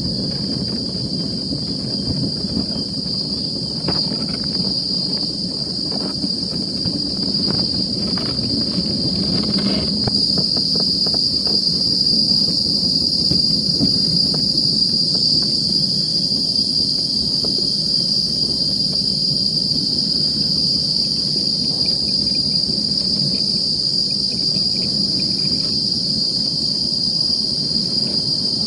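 Luge cart rolling down the track, its wheels making a steady low rumble, over a constant high-pitched insect drone. A few light knocks come in the first ten seconds or so.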